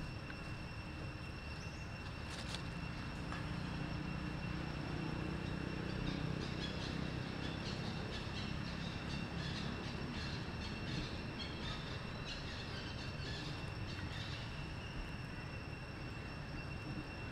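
Outdoor background noise: a steady high-pitched whine runs throughout, under a low rumble that swells from about four seconds in and fades after about eight seconds.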